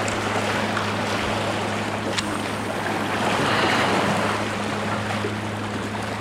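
Sea waves washing against the shore, with wind, a steady wash that swells a little around the middle.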